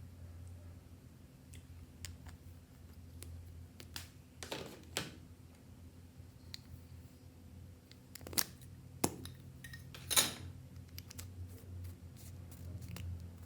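Clear slime being handled and mixed by hand: scattered soft clicks and crackles, with a few louder, sharper pops and squelches in the middle of the stretch, over a steady low hum.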